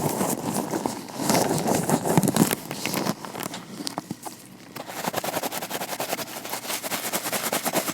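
Vinyl-latex gloved hands rubbing close to the microphone, a dense crackly glove friction, then from about five seconds in a rapid run of light taps or scratches.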